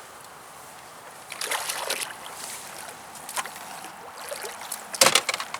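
Water splashing and sloshing against a canoe, louder for a moment about a second and a half in, with a sharp burst of noise about five seconds in.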